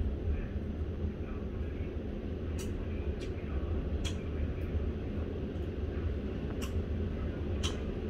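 Typhoon wind and heavy surf heard from behind a high-rise window: a steady low rumble, with a few sharp ticks scattered through it.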